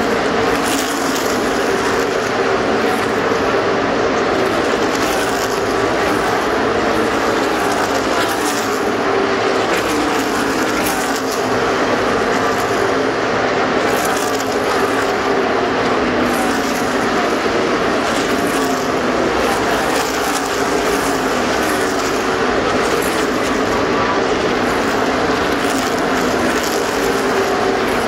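A field of NASCAR stock cars at racing speed, their V8 engines making a continuous loud drone. The engine pitches rise and fall over and over as cars pass.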